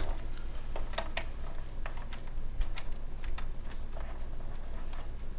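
Scattered light clicks and taps of cables and plugs being fitted back into a laptop, over a steady low hum.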